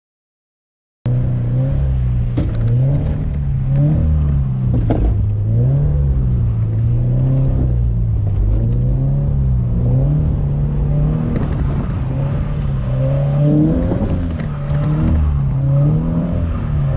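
After about a second of dead silence, a car engine revs up and down over and over during a drift on a wet road, with the rush of tyres and spray underneath.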